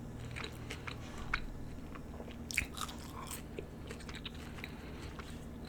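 A person chewing and biting fast food close to the microphone: scattered soft crunches and mouth clicks, a few louder ones a little past halfway.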